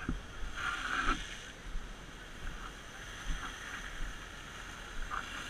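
Wind buffeting a helmet camera's microphone, with irregular low thumps and a short rushing hiss about a second in.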